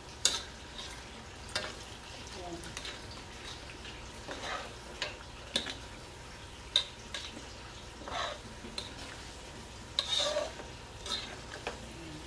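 Long metal ladle stirring spaghetti sauce in an aluminium wok, with scattered clinks and scrapes of metal on the pan over a faint sizzle of the simmering sauce.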